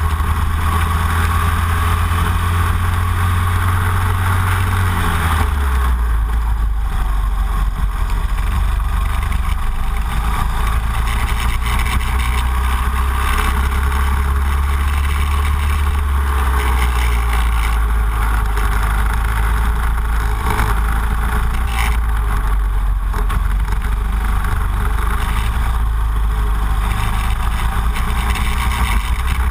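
Racing kart engine running hard at track speed, heard from a camera mounted on the kart; the engine note drops about five seconds in, then holds fairly steady.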